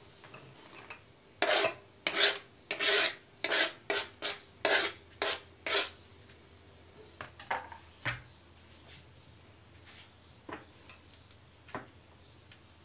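Serrated kitchen knife scraping across a plastic chopping board, pushing grated carrot into a steel bowl: about a dozen quick scrapes over some four seconds, then a few faint clicks.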